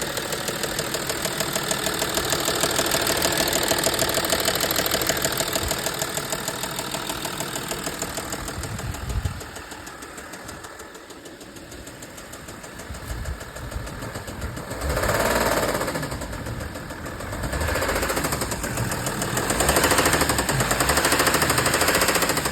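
Audi A6 C6's 2.7 TDI V6 diesel engine running with a rapid, rhythmic knock, a noise whose cause the owner cannot identify. It gets quieter about halfway through and louder again near the end.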